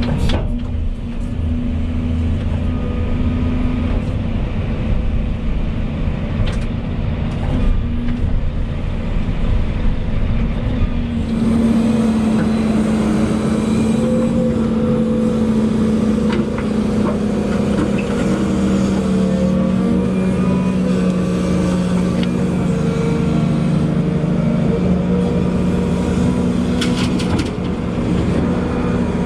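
Volvo EC220E excavator's diesel engine and hydraulics running steadily while digging. About a third of the way in the engine note gets fuller and brighter, then its pitch sags slowly as it works under load.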